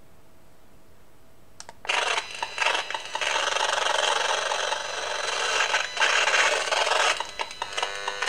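EMFields Acousticom 2 RF detector's speaker giving out a loud, raspy crackling buzz that starts suddenly about two seconds in, as it picks up a strong radio-frequency signal near the window, which the owner takes for a directed attack beam.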